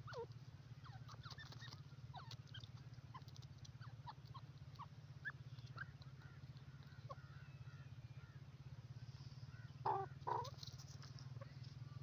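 Grey francolin (dakhni teetar) hen giving soft, short downward-sliding peeps at irregular intervals, with two louder calls about ten seconds in. A faint low steady hum runs underneath.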